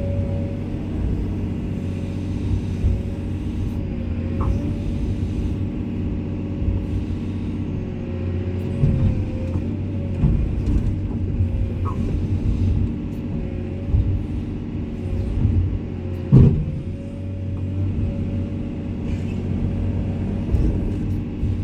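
Komatsu excavator's diesel engine running steadily under load, with a wavering hydraulic whine over it. A few knocks come through, the loudest a sharp bang about sixteen seconds in.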